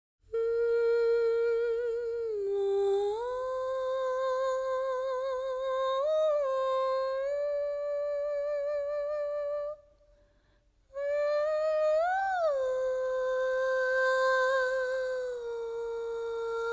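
Wordless female vocal melody from the opening of a song: long held notes with vibrato and a few slides up and down in pitch. It breaks off for about a second near the middle.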